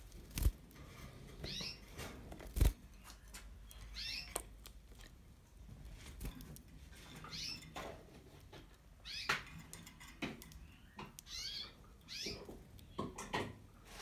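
Canary giving short, high chirping calls every second or two. Sharp knocks and clicks come between them, the two loudest about half a second and almost three seconds in.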